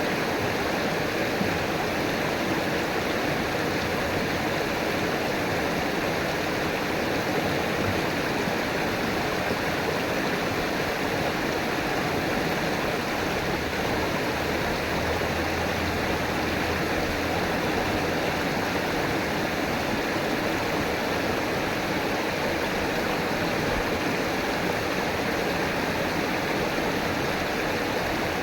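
River water flowing and rushing over rocks, a steady even rush with no breaks.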